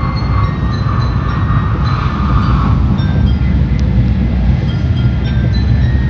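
Tokaido Shinkansen train running at speed, heard from inside the car: a steady low rumble with a faint whine that fades out about halfway through.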